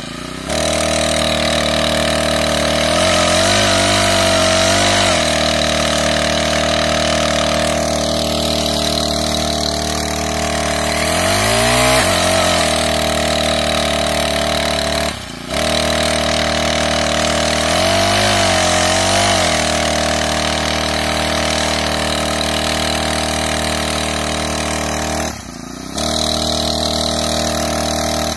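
Small backpack brush-cutter engine running steadily, driving a helical tiller attachment through a flexible shaft as it digs soil. Its pitch dips and recovers three times as the load changes, and the sound breaks off briefly twice, near the middle and near the end.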